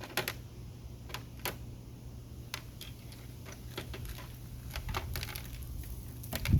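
Irregular light metallic clicks and clinks of small hand tools being handled, the thread tap and tap handle being set up to tap the stripped aluminum bolt hole for a helicoil, over a steady low hum. A louder thump comes near the end, as the hum stops.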